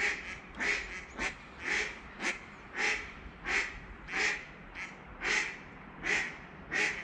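A duck quacking loudly over and over: a long, regular run of about a dozen quacks, roughly two every second.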